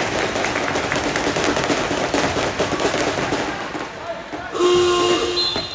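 Indoor basketball game: voices of players and spectators over ball bounces and knocks on the court. Then, a little before the end, the scoreboard horn sounds once, a steady buzz for under a second, and it is the loudest thing here.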